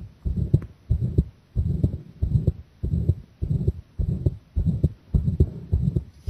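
A girl's heartbeat pounding fast, about 100 beats a minute, each beat a pair of close low thuds (lub-dub).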